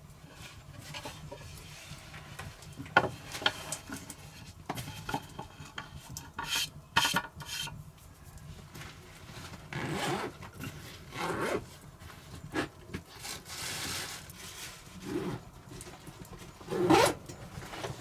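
Irregular handling sounds: scrapes and rubbing with scattered knocks, the loudest knock near the end.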